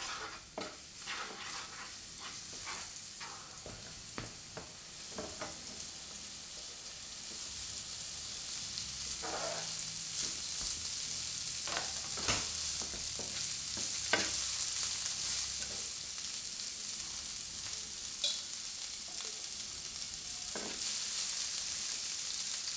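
Garlic, then broccoli florets, frying in olive oil in a white ceramic-coated frying pan: a steady sizzle that grows louder partway through. Scattered knocks and scrapes come from a wooden spoon stirring against the pan.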